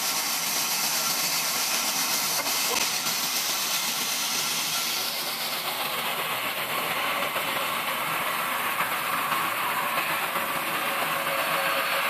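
Large band saw running with a steady hiss as a thick wooden slab is fed through the blade and ripped lengthwise.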